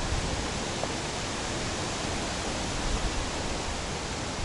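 Steady rushing noise of a bicycle ride through rain on a wet paved path.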